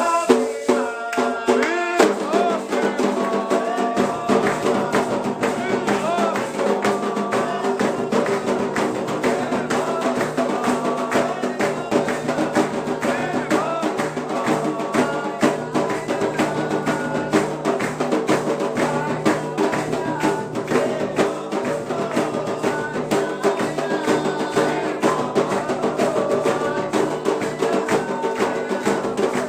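Candomblé ritual music: drums and hand percussion in a fast, steady rhythm with voices singing over them. The sound fills out about two seconds in, and a low part joins about two seconds later.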